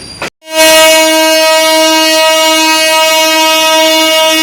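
Train's air horn sounding one long, steady, loud single-pitched blast, starting abruptly about half a second in after a brief cut to silence.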